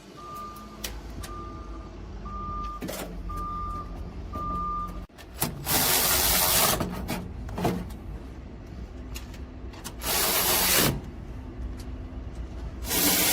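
A reversing alarm beeps evenly, about one and a half beeps a second, over a low engine hum. It stops about four and a half seconds in. After a sudden break come three loud bursts of hissing air, each about a second long.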